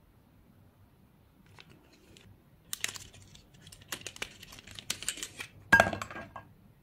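Cardboard mascara box being opened and the gold mascara tube slid out: a run of small clicks, taps and rustles, with a sharper knock and a brief ring near the end.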